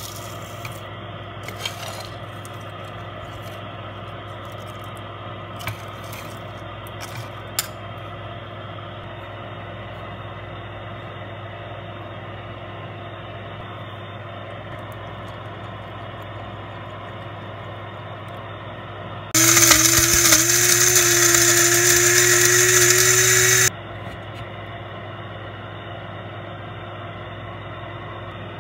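A few light clicks of whole spices dropping into the steel cup of a small electric spice grinder. About two-thirds of the way in, the grinder's motor runs for about four seconds with a loud whir and a steady hum that rises slightly in pitch, grinding the spices to powder, then cuts off suddenly.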